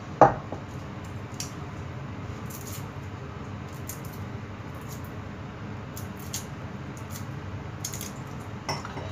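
A wooden mortar set down on the stone counter with one sharp knock about a quarter second in, then faint scattered crackles and ticks of garlic skins being peeled by hand, over a steady low hum.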